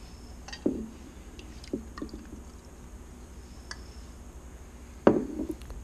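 A few light knocks and clinks of glass mason jars and a small plastic cup being handled on a countertop, the loudest about five seconds in, with a little water poured from the cup into a jar.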